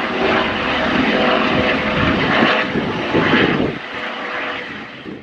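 US Coast Guard MH-65 Dolphin helicopter flying past, its turboshaft engines and rotors making a loud, steady noise with faint engine tones. The sound fades down about four seconds in.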